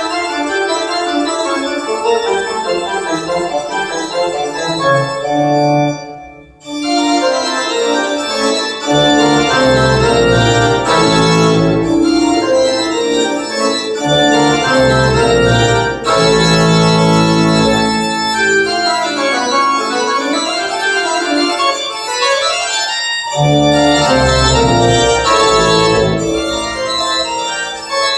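Organ-led keyboard music played back through Technics SB-6000A loudspeakers driven by a Behringer A500 amplifier, as a speaker sound test. The music drops out briefly about six seconds in, then comes back with deep bass from about nine seconds.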